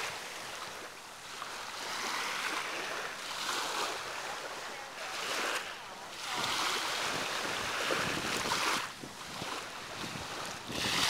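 Small waves breaking and washing on the shore, a hiss that swells and fades in repeated surges, with wind on the microphone.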